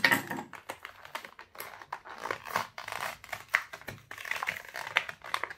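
Plastic blister pack of a die-cast toy car crackling and clicking in quick irregular snaps as it is pried open by hand from its cardboard backing card.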